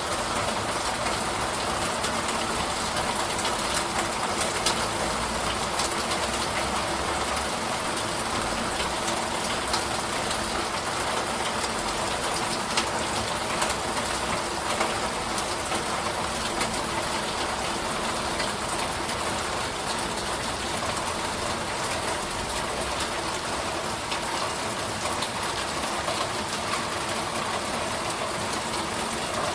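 Steady rain shower: an even hiss with scattered drop ticks.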